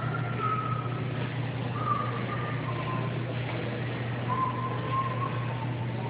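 Street traffic on a snowy road: a steady low hum under a haze of traffic noise, with three faint whining tones, each about a second long and falling slightly in pitch.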